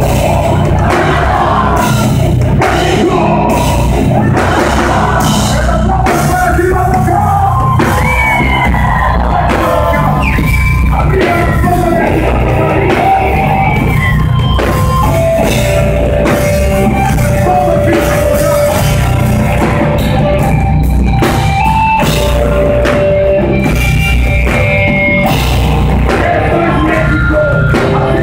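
Heavy metal music, with a drum kit and guitars playing hard and loud and long held melodic notes through the middle.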